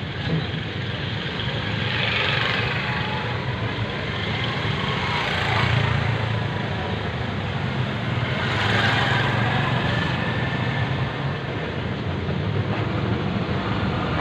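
Road traffic noise: a steady low hum with vehicles passing, swelling about two, five and a half and nine seconds in.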